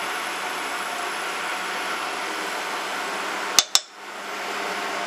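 Steady whirring hiss of an induction cooktop's cooling fan running under an empty wok. About three and a half seconds in come two sharp clicks in quick succession.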